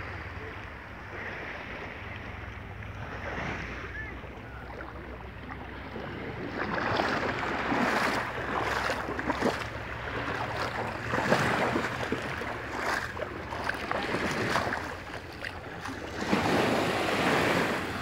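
Sea water lapping softly, then small waves washing in and foaming over wet sand in several surges that swell and fade, the loudest near the end. A low wind rumble on the microphone runs underneath.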